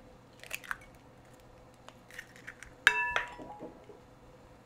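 Eggs being cracked with a fork over a glass bowl: a few light taps and shell crackles, and just under three seconds in one sharp metallic clink that rings briefly, followed by softer crackling as the shell is pulled apart.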